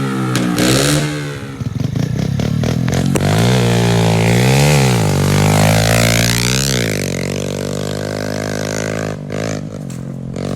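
Car engine revving, its pitch swinging up and down several times in quick succession before settling to a steadier run, with some clattering early on.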